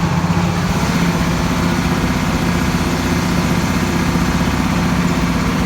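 Tractor engine running steadily with an even, unchanging hum.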